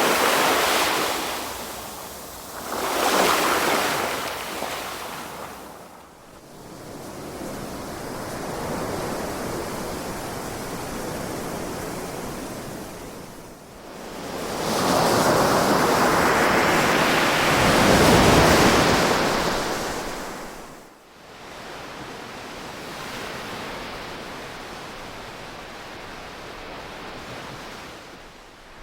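Ocean waves rolling in and washing back in repeated surges. A wave swells right at the start, another about 3 s in, and the longest and loudest from about 14 to 20 s, with softer wash in between.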